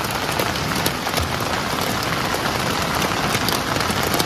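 Heavy rain falling on a tent: a dense, steady hiss of rain with sharp individual drop hits throughout.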